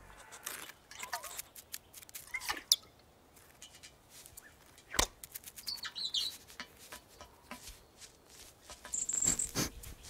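Cartoon sound effects for small animals creeping about: scattered light taps and rustles, a few short squeaks and chirps, and one sharp knock about halfway through, which is the loudest sound.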